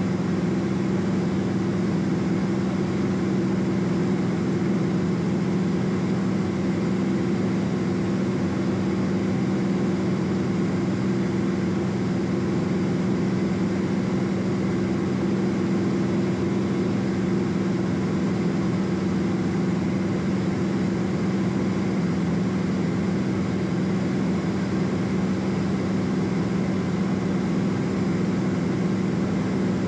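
Cessna P210 Centurion's engine and propeller running steadily in flight, heard inside the cabin as a constant low hum with several steady tones.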